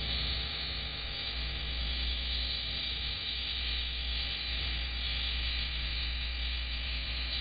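Steady static hiss with a low hum underneath from a Ring doorbell camera's microphone, with no distinct events.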